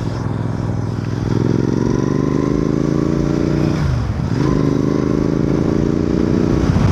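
Royal Enfield Continental GT 650's parallel-twin engine pulling under acceleration, its pitch climbing, dipping at a gear change about four seconds in, then climbing again.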